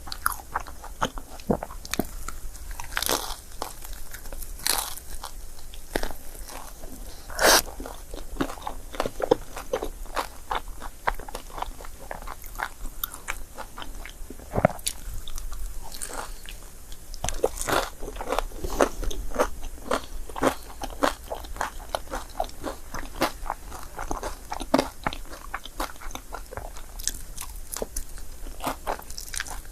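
Close-miked chewing and biting of crepe: a dense, continuous run of short mouth clicks and smacks, with a few louder bites now and then.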